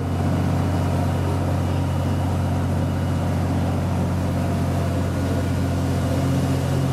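Boat engine running steadily: a constant low drone.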